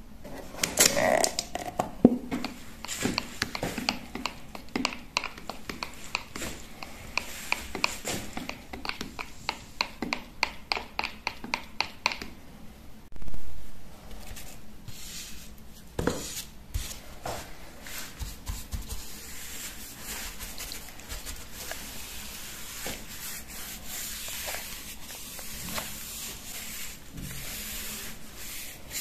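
Paint brush rubbing in strokes over a cabinet door panel. It is preceded by a run of quick, evenly repeated scraping strokes, a few a second, and a short loud rustle about halfway through.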